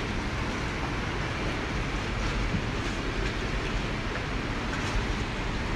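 Steady rushing wind noise on the microphone, even and without distinct events.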